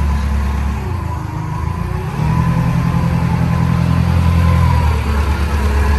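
Forklift engine running steadily at a low pitch, a little louder from about two seconds in.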